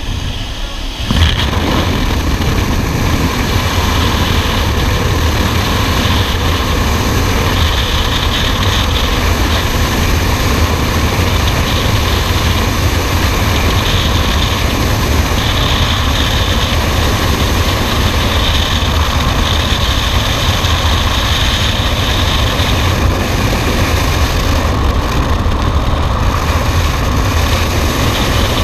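Loud, steady rush of freefall wind buffeting the camera's microphone, which sets in sharply about a second in as the skydivers leave the aircraft door; just before that, the aircraft's engine and slipstream at the open door.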